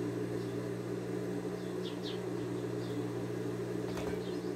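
A steady low electrical hum, with a few short, faint high chirps scattered through it and a faint click near the end.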